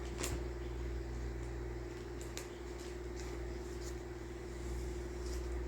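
Steady machine hum, with a few faint light clicks and taps of plastic model-kit parts being handled.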